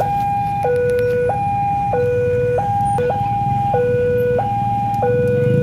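Railway level-crossing warning alarm sounding, an electronic two-tone signal switching steadily between a low and a high tone about every two-thirds of a second, warning that a train is approaching and the crossing is closed.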